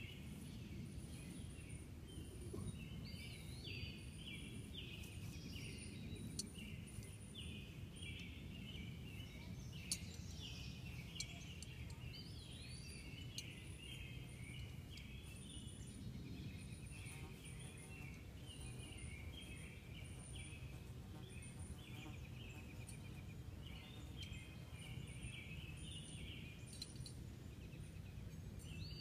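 Several birds singing and chirping continuously, with a thin high note repeating every second or two, over a steady low background rumble.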